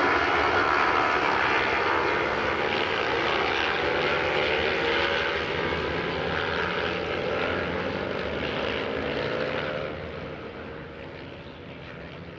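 A pack of racing motorcycles running hard around the circuit, many engines blending into one dense drone whose pitch slowly shifts. It fades away over the last couple of seconds as the bikes pull off into the distance.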